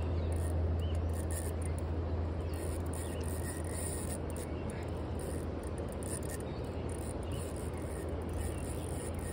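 Steady rush of river rapids, with insects calling high above it and a low rumble that eases off about halfway through.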